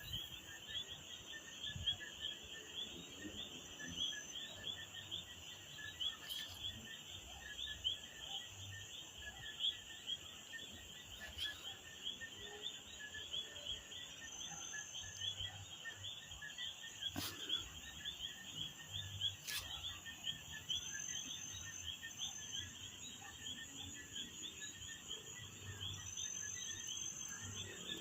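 A chorus of many small calling animals: dense, rapid high chirping that goes on without a break, with a thin, higher whistle now and then and a few faint clicks.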